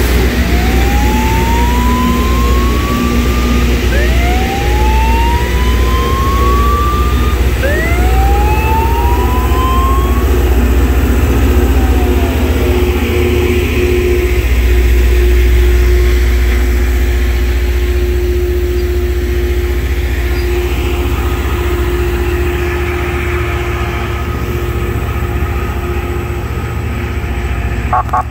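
Loram rail grinder working the rail as it passes: a heavy, steady engine rumble with the grinding of its stones against the rail. Three rising whines come in the first ten seconds, then a steady hum holds through the middle.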